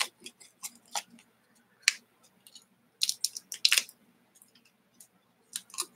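A small foil sachet crinkling and tearing as fingers pull it open by hand. Short crisp crackles come about once a second, with a longer run of crinkling about three seconds in.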